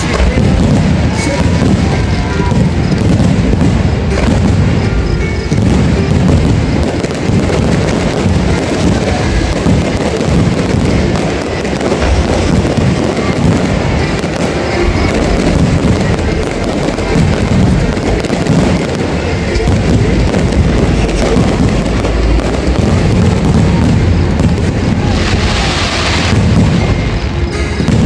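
Fireworks booming and crackling, with music playing underneath. A brief, sharper burst of noise comes near the end.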